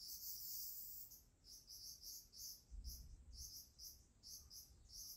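Faint, very high-pitched insect chirping: a longer trill, then short chirps repeating about three to four times a second.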